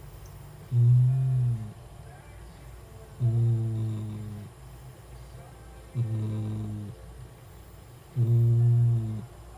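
Domestic cat making a low, pitched snore-like sound on each breath: four times, about every two and a half seconds, each lasting about a second.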